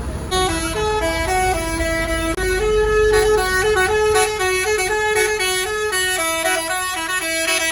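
Indonesian bus telolet horn, a multi-trumpet musical air horn, playing a quick tune of stepping notes that starts a moment in.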